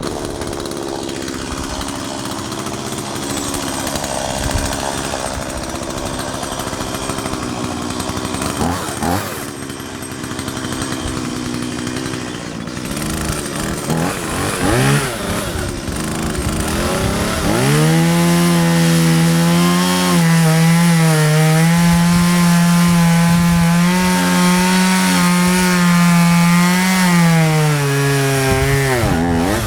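Two-stroke chainsaw cutting into a juniper trunk, its engine speed dipping and recovering under load. From a little past halfway it is held at a steady high-pitched whine, which drops away just before the end.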